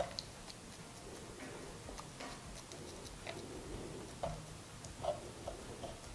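Faint, scattered soft ticks and taps as fingers press and shape a soft curd-cheese dough in a lightly oiled nonstick frying pan.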